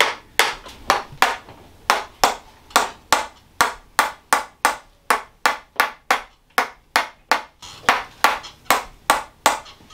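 Tok Sen hammer massage: a mallet steadily tapping a stick held against a person's back, sharp knocks at about two and a half a second that stop just before the end.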